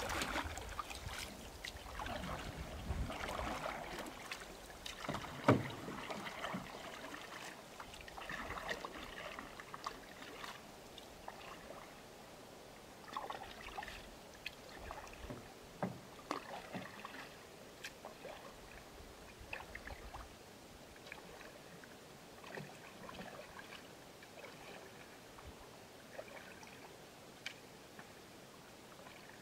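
Canoe paddle strokes in calm lake water, dips and swishes every couple of seconds, growing fainter as the canoe moves away. One sharp knock comes about five seconds in.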